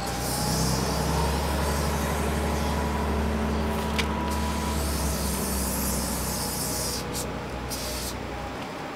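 A large motor vehicle's engine running close by, a low steady sound that stops near the end, with aerosol spray paint hissing in bursts over it and a single sharp click about halfway through.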